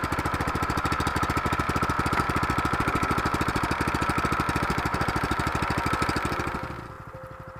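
A small engine running with a rapid, even chugging and a steady whine above it. It starts abruptly and drops to a quieter level near the end.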